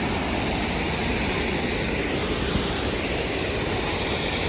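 Waterfall rushing, a steady even noise with no breaks.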